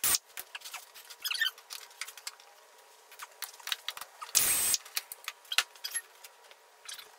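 Hand-tool work on the bolts holding a mower-deck blade spindle: scattered metallic clicks, clinks and short rattling runs of clicks, with a brief loud burst of noise right at the start and another about four and a half seconds in.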